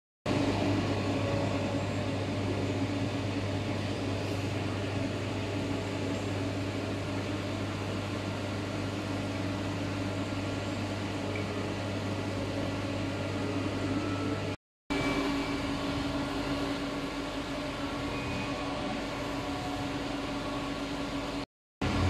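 Steady low mechanical hum with a hiss from public aquarium tank equipment (pumps and filters), cutting out briefly twice.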